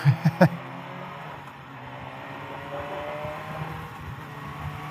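Motorcycle engine running under way, its pitch climbing slowly through the second half as the bike gathers speed, over a steady rush of wind.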